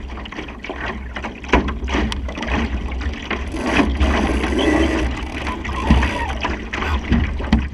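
Wind buffeting the microphone and water rushing along the hull of a Supernova sailing dinghy under way, swelling for a second or two midway, with a few short knocks.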